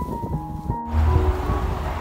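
Background music with steady held notes cuts off abruptly under a second in, giving way to a steady rushing noise with a heavy low rumble.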